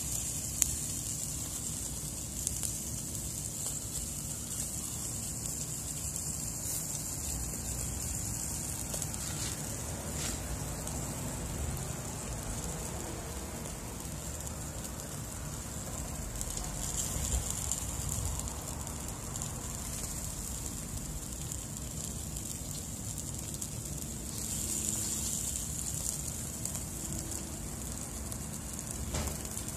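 Fish sizzling over hot charcoal in a kettle grill: a steady hiss with a few short crackles and pops.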